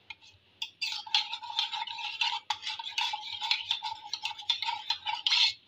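A metal spoon rapidly stirring custard powder into milk in a small stainless-steel mug, scraping and clicking against the sides with a steady metallic ring. It starts about a second in and stops just before the end.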